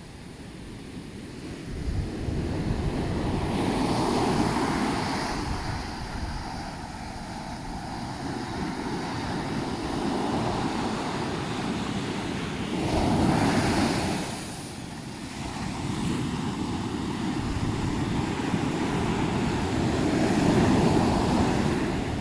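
Ocean waves breaking and washing up a beach, the surf swelling three times as successive waves come in.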